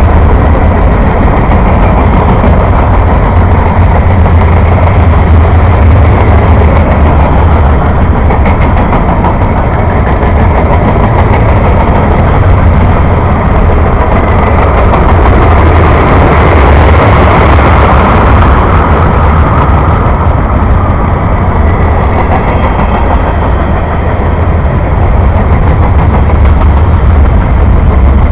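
Freight cars of a passing mixed freight train rolling by at speed: a steady, loud rumble and clatter of steel wheels on the rails, growing harsher for a few seconds midway.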